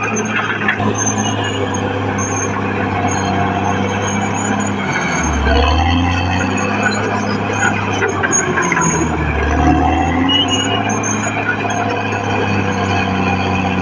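Caterpillar D6R XL bulldozer's diesel engine running steadily while working. It swells in load twice, about five and a half seconds in and again near ten seconds.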